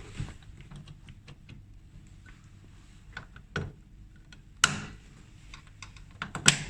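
Scattered small clicks and knocks of plastic parts being handled as an EMS sculpting machine's handpiece connector is plugged in, with a few louder knocks, the loudest about two-thirds of the way through and another pair near the end.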